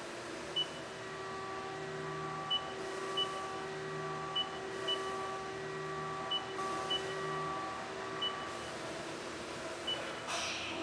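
Haas CNC mill boring grade 5 titanium under flood coolant: a steady hiss of coolant spray over the hum of the spindle and cut, with short high beeps every second or so. A brief louder splash-like burst comes near the end.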